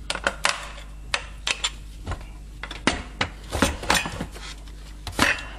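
Irregular light clicks and knocks of tools and parts being handled on a wooden workbench: a thin aluminium strip and a plastic freezer door handle set down, and an electric drill picked up. The drill is not running.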